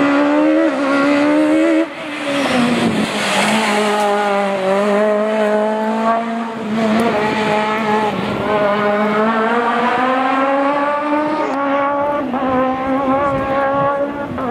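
Peugeot 306 Maxi rally kit car's naturally aspirated four-cylinder engine at high revs, its pitch climbing and falling again and again through the gears. Its level drops sharply about two seconds in.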